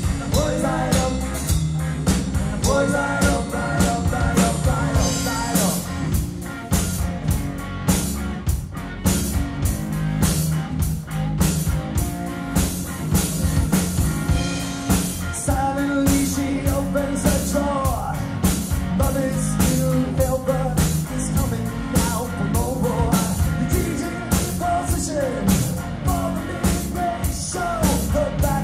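Live rock band playing a pop-rock cover: electric guitar, bass guitar and drum kit keeping a steady beat, with a man singing.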